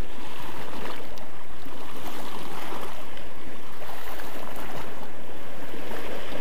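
Sea water washing steadily against a rocky shoreline, an even rushing with no pauses.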